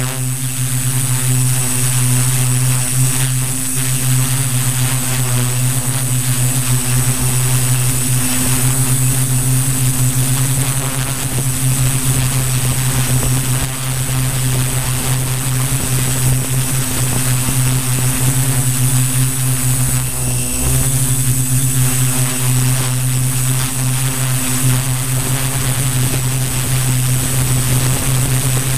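Multirotor drone's electric motors and 15x5.5 propellers running in flight, heard from a camera on the airframe: a loud, steady hum with a thin high whine above it.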